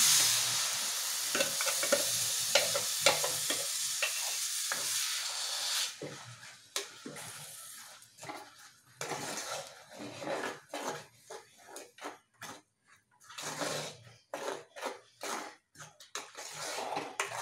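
Ground coconut-and-curd paste poured into a hot clay pot of fried bitter gourd, sizzling with a steady hiss for about six seconds. Then a metal ladle stirring the mixture, scraping against the clay pot in short, uneven strokes.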